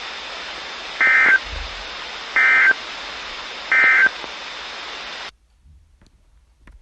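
Three short Emergency Alert System SAME data bursts, the end-of-message code that closes an alert, each lasting a fraction of a second and coming about a second and a half apart. They sit over steady radio hiss, which cuts off suddenly after about five seconds.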